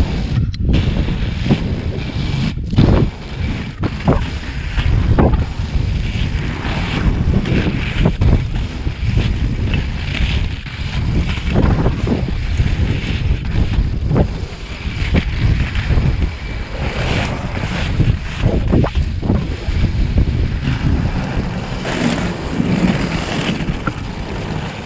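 Inline skate wheels (80 mm urethane Revolver wheels on Rollerblade Metroblade skates) rolling over rough asphalt: a steady rumble mixed with wind on the microphone, with frequent short knocks as the wheels strike cracks and edges in the surface.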